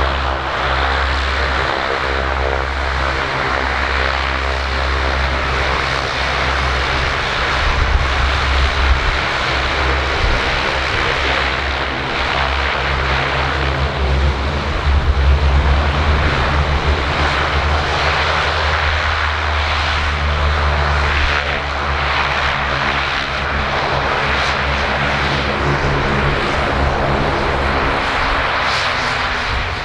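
CASA/IPTN CN-235-100's twin turboprop engines running as it taxies: a steady propeller drone of several pitched tones over turbine hiss. It swells a little about eight and fifteen seconds in.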